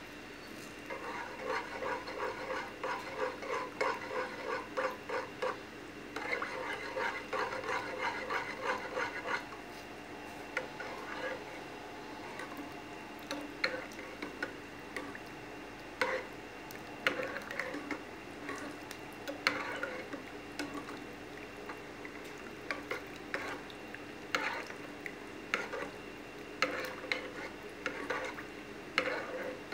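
A metal spoon stirring thick soup in an enamel pot, scraping and knocking against the pot. The stirring is quick and rhythmic for about the first nine seconds, then gives way to occasional sharp clinks of the spoon on the pot.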